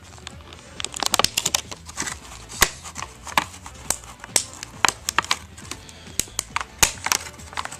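Plastic packaging being handled and pulled apart: an irregular run of clicks, crinkles and snaps, with a couple of sharper snaps along the way.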